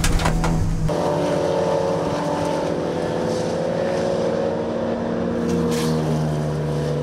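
Race car engines: for about a second the onboard sound of the Civic Type R CNF-R's engine, then a cut to race cars heard from trackside, their engines running at speed in a steady, slowly drifting tone.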